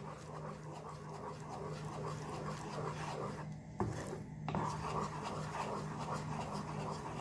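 A spatula stirring a thick sauce in a non-stick pan, scraping and rubbing across the pan in repeated strokes, over a low steady hum.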